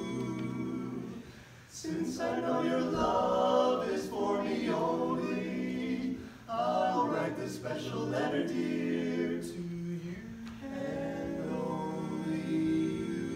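Male barbershop quartet singing a cappella in four-part close harmony, holding chords between phrases, with short breaks for breath near two seconds in and again just after six seconds.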